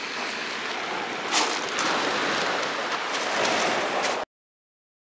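Sea waves washing at the shore, a steady rush of water that swells louder about a second and a half in, then cuts off suddenly near the end.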